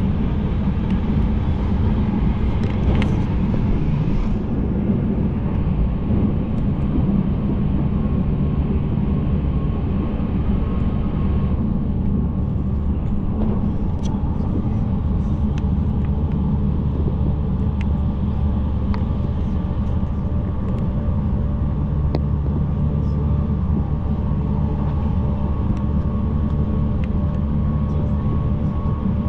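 Passenger train running, heard from inside the carriage: a steady rumble with a faint hum and a few light clicks.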